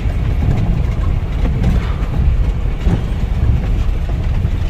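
Steady low road rumble and rattling inside the cab of a 4x4 motorhome being towed, engine off, over a wet dirt road, with rain on the windscreen.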